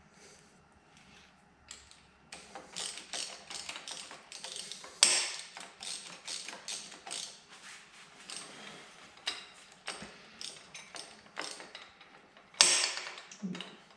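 Hand socket ratchet clicking in quick runs of strokes, with two sharp metallic knocks, one about five seconds in and one near the end.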